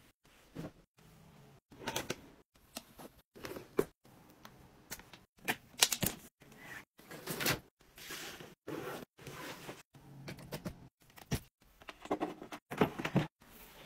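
A string of short household tidying sounds, cut one after another with abrupt silent gaps between them: rustling fabric, the click and scrape of plugs pulled from a wall socket, and charger cables being handled and dropped into a drawer.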